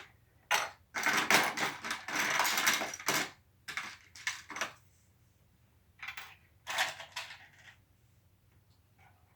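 Plastic Lego Technic pieces clicking and clattering, with a dense stretch of rattling a second or two in, as if parts are being rummaged through, then scattered clicks.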